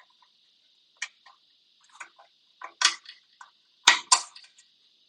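A string of sharp metallic clicks and clanks from hand tools and parts being worked loose on an air compressor, irregular and growing louder, with the loudest two knocks close together about four seconds in.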